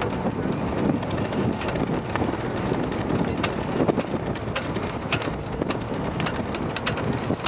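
Strong wind buffeting the microphone over rushing, splashing water, with frequent short sharp cracks scattered throughout.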